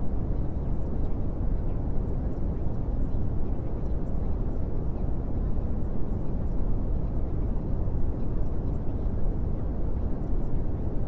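Steady low rumbling noise with faint scattered crackles above it.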